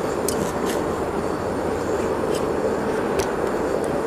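Gas-fired melting furnace burner running with a steady roar, and a few light clicks of steel tongs on the graphite mold and bench in the first second.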